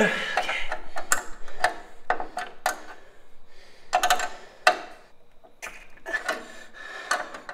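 Irregular metallic clicks and clinks of a small wrench and pliers working a steel brake-line fitting at a frame bracket as the fitting is being tightened.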